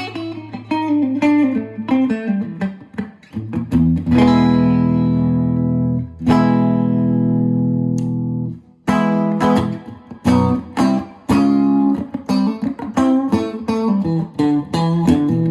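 Guitar being played: single picked notes, then two chords left to ring out for a couple of seconds each, followed by a run of quicker picked notes.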